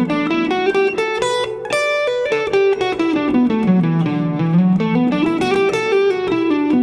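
Guitar playing a D major pentatonic scale with an added G note, as a six-note scale: single notes one after another, running up, back down, then up and down again.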